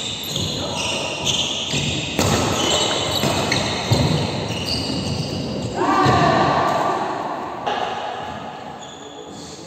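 Badminton rally in an echoing indoor hall: sharp racket strikes on the shuttlecock and sneakers squeaking on the court floor. A voice calls out loudly about six seconds in.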